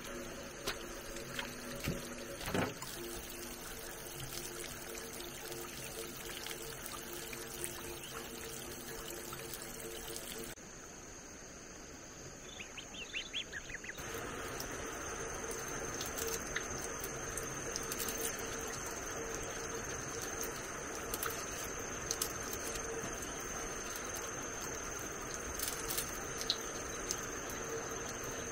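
Water from an outdoor tap running steadily into a plastic basket of leafy greens as they are rinsed, after a sudden change about halfway through; a thin, high steady tone runs alongside it. Before that, a steady outdoor background with a faint low hum and a few clicks.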